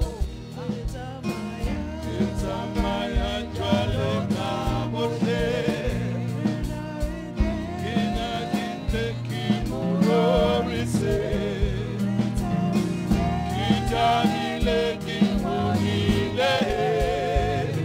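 Gospel music: a singing voice with vibrato over a band with a sustained bass line and a steady beat.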